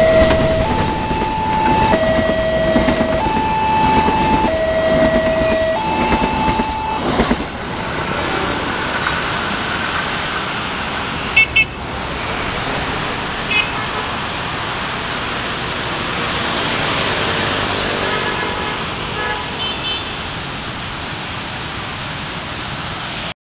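Level-crossing electronic alarm alternating between a low and a high note, each held about a second, over the rumble of a passing diesel locomotive train. The alarm stops about seven seconds in, leaving road traffic noise with a couple of short horn toots as vehicles start to cross.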